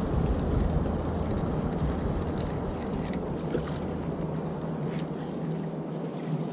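Steady wind on the microphone over water moving against a fishing kayak's hull at sea, with a few faint clicks and drips.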